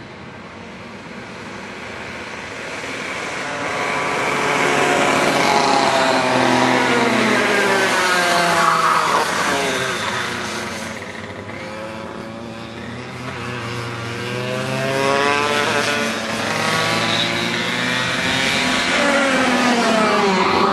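Several Parilla Leopard 125cc two-stroke kart engines running at high revs as karts race past. The pitch climbs as they accelerate and drops as they go by. The sound swells and fades as the pack comes past twice, loudest about six seconds in and again near the end.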